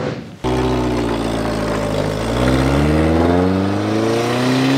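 A 1974 Toyota Celica's 18R-C 2-litre four-cylinder engine pulling hard under acceleration, its note climbing steadily through the second half.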